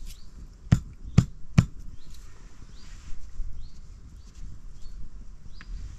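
Three sharp knocks in quick succession, about half a second apart, with faint short high chirps repeating in the background.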